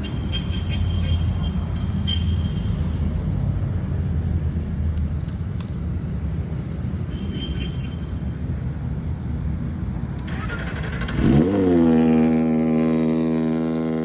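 Kawasaki ZX-25R's 250 cc inline-four engine idling with a rough low rumble. About 11 seconds in it revs up quickly and holds a steady higher note.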